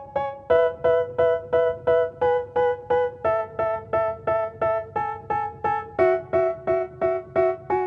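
Background music: a keyboard playing short, detached chords, about three a second, with the chord changing every few seconds.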